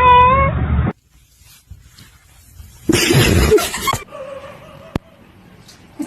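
A short, high-pitched meow-like call, then after a cut a loud, harsh cough-like burst lasting about a second, from a cat in this cat compilation.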